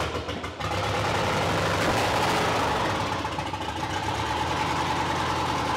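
Swapped-in GM 5.3 LS V8 cranking on the starter, catching about half a second in and then running steadily on its first start-up.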